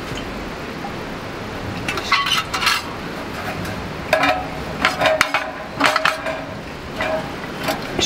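Metal clinks and short ringing knocks in several small groups from about two seconds in, as a wire-mesh heater top is set onto a portable pressure stove.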